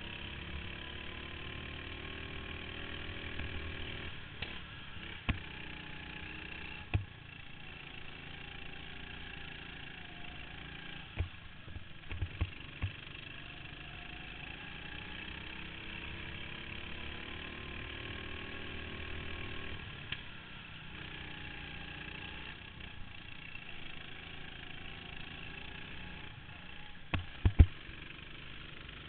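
Go-kart engine running under the driver, its pitch climbing on the straights and dropping off into the corners, over and over. Several sharp knocks break in, a few around the middle and the loudest pair near the end.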